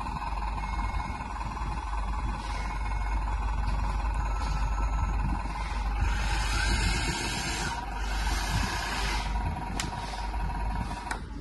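1/14-scale metal RC hydraulic bulldozer running, with a steady electric whine and louder hissing stretches about six and eight seconds in.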